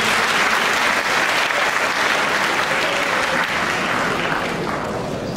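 Audience applauding, easing off slightly in the last couple of seconds.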